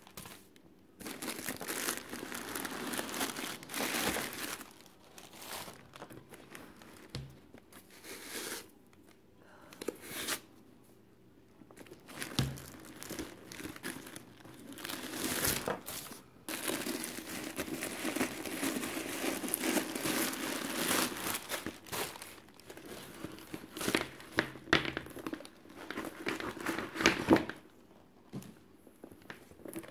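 Tissue packing paper rustling and crumpling in bursts with short pauses, as it is pulled out of a handbag and handled.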